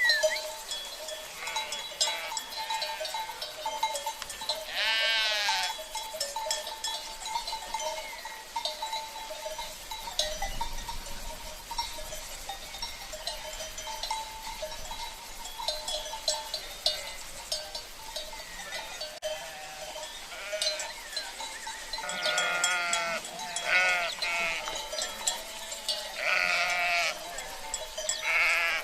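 Sheep bleating, once about five seconds in and several times in quick succession near the end, over the ringing and clinking of livestock bells.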